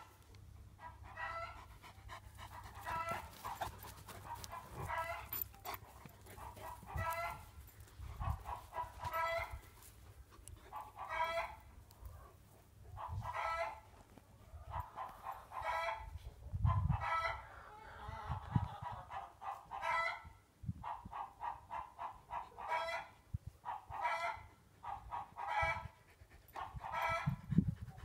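An animal calling over and over in short, pulsed bouts about every two seconds, with a few low thumps in between.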